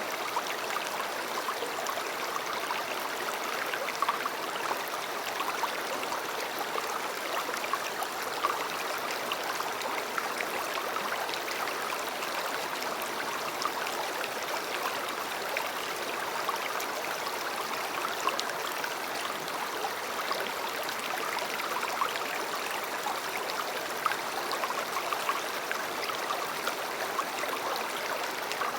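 River water flowing steadily, a constant babbling rush, with small splashes standing out now and then.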